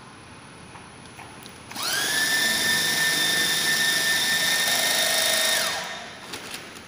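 Bag stitching machine's sewing-head motor starting about two seconds in with a quickly rising whine. It runs at a steady high whine for about four seconds while stitching a bag closed, then winds down.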